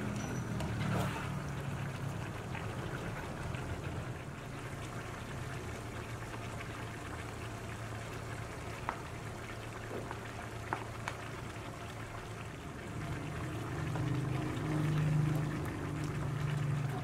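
Chicken simmering in its juices in a stainless steel wok: a steady bubbling, with a few sharp clicks in the middle. It gets louder near the end as a spatula stirs the pan.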